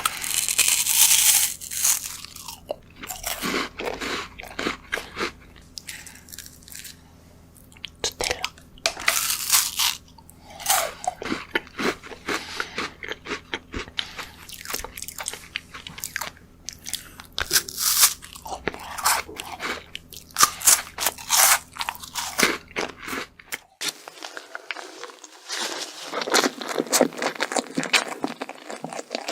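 Close-miked mukbang eating sounds: repeated crunchy bites and chewing of chocolate desserts, in irregular bursts with short pauses. About three-quarters of the way through, the background hum changes as a different eater's clip begins, and the crunching and chewing go on.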